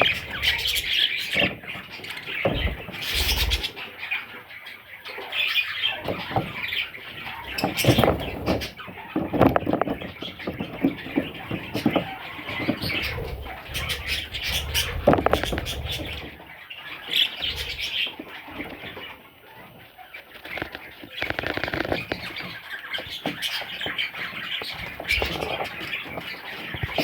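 Budgerigars chirping and chattering in short clusters, with bursts of wing flapping throughout.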